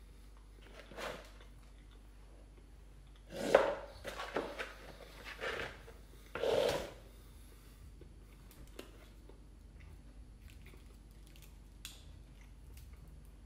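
Fried chicken being handled and eaten: a few short rustling, crackling bursts as a hand rummages in a cardboard bucket of chicken in the first seven seconds, then quieter handling of the crispy pieces with a few small clicks.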